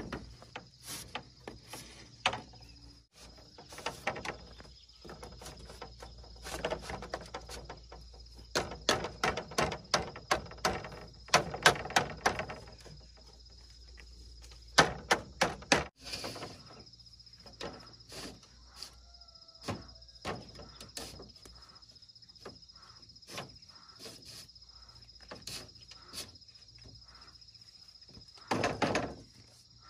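Split bamboo slats clattering and knocking as they are laid across a bamboo-pole frame and knocked into place with a hammer, in clusters of sharp knocks. A steady high insect chirring runs behind.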